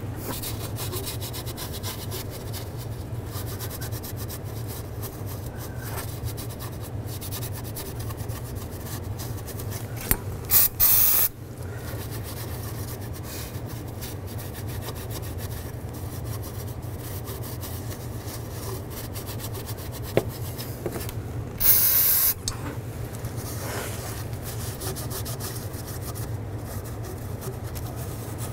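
A rag rubbing and wiping across the engine's intake gasket surface to clear off old gasket material, with two short hissing bursts of brake parts cleaner spray, about ten seconds in and again about twenty-two seconds in.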